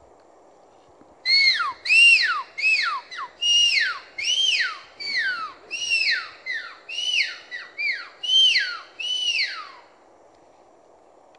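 Agouti whistle: a run of about fifteen loud, arched whistles, roughly two a second, each rising quickly and then sliding down in pitch, over a faint steady forest hiss. The run starts about a second in and stops abruptly near the end.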